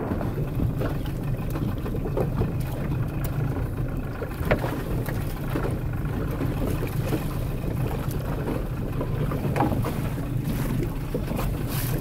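Boat engine running steadily, with scattered light clicks and knocks over it.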